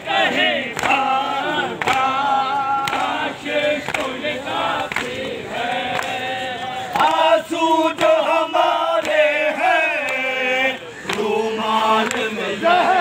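A crowd of men chanting a nauha, a Shia mourning lament, together in a call-and-response style, with sharp chest-beating (matam) strikes roughly once a second.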